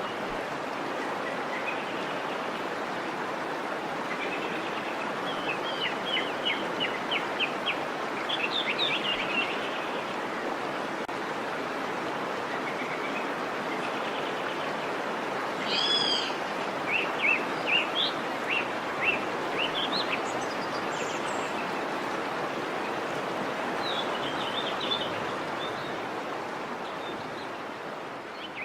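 Steady rush of a waterfall, with small birds chirping in short runs of quick notes now and then over it. The water sound fades down near the end.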